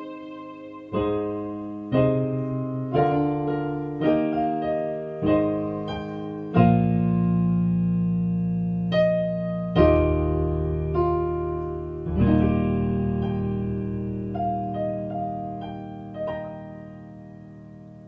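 Solo piano played with both hands: chords struck about once a second, then longer held chords with a few light notes over them, the last chord slowly dying away near the end.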